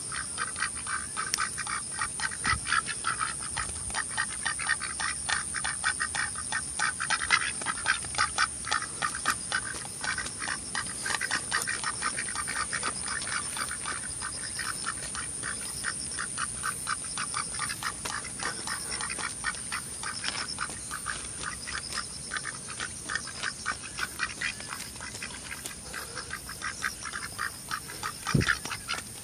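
Domestic ducks quacking in a continuous, rapid run of short calls, several a second.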